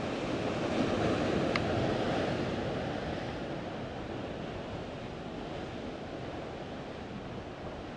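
Sea surf washing against a rocky shore: a steady rush of water that swells over the first couple of seconds and then eases to an even level.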